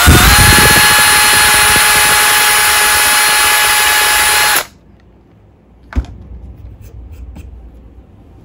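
Makita 18V cordless drill running at steady full speed with a small bit, drilling a pilot hole through a wooden shim block and thin plywood board: a loud, steady whine that cuts off abruptly after about four and a half seconds. A single sharp knock follows about a second and a half later.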